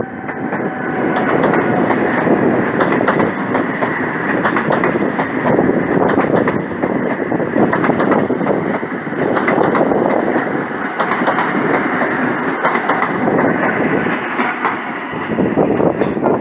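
A train passing close by, its wheels clattering over the rail joints in a continuous loud rush with many sharp clicks.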